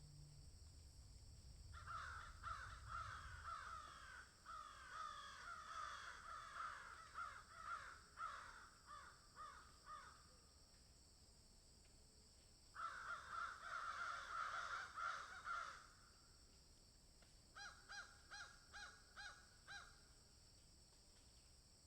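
Birds calling in bursts: a long stretch of overlapping calls starting about two seconds in, another burst about thirteen seconds in, then a run of six short calls near the end, over a faint steady high hiss.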